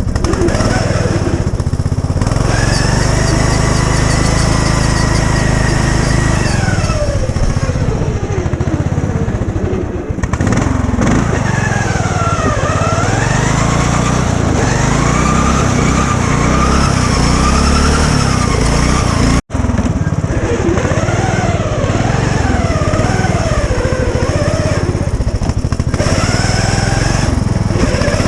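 Riding lawn mower's small engine running under throttle, its speed rising, holding and falling again several times. The sound drops out for an instant about two-thirds of the way through.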